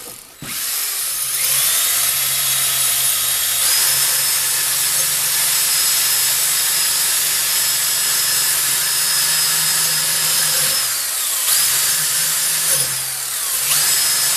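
Electric drill spinning a wire wheel against the knife's metal, a steady high motor whine with a scratchy hiss of the wire brushing. About eleven seconds in, and again near the end, the drill slows and then speeds back up.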